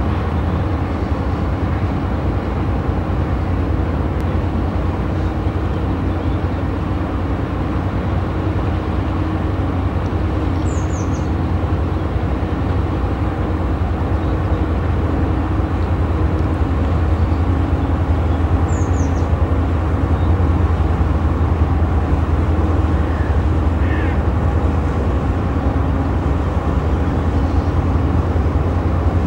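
Inland motor tanker's diesel engine running with a steady low drone as the vessel passes close by, growing slightly louder. Short high bird chirps about ten and nineteen seconds in.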